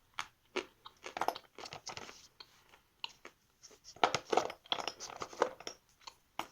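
Someone chewing a dry lump of edible chalk: crisp, irregular crunches, thickest about four to five and a half seconds in.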